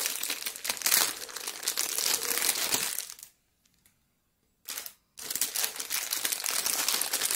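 Clear plastic packaging bag crinkling as a hand works inside it to open it, with a pause of about a second and a half midway before the crinkling resumes.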